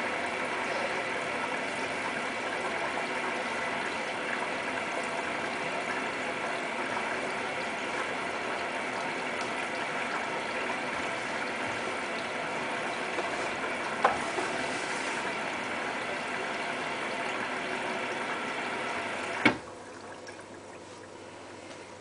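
Hotpoint Ultima WT960 front-loading washing machine running its 95 °C boil wash, with water moving in the drum and the machine running steadily. A sharp click comes near the end, after which it goes much quieter, leaving a low hum.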